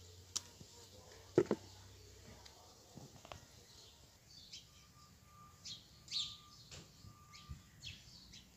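Small birds chirping in short, repeated calls in the second half, with a few light knocks and snaps in the first half as bean pods are picked and dropped into a plastic bowl, the loudest about a second and a half in.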